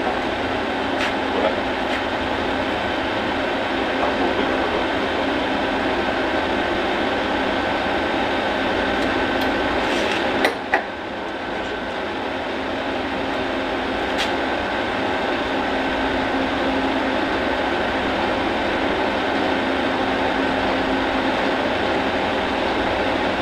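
A machine running steadily, a constant whirring hum with a few fixed tones. It dips briefly about ten seconds in.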